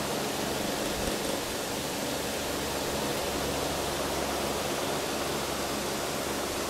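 Electric desk fan running: a steady rushing noise with a low, even hum underneath.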